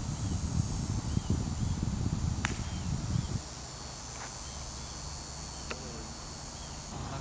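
Steady high buzzing of insects, with a faint short chirp repeating a little under once a second. A low rumble of wind on the microphone drops away about halfway through, and there is one sharp click about two and a half seconds in.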